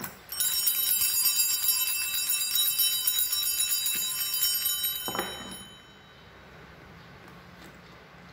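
Small altar bells shaken rapidly, a bright, high, many-toned ringing for about five seconds that then stops, with a short downward-sliding sound just before the end.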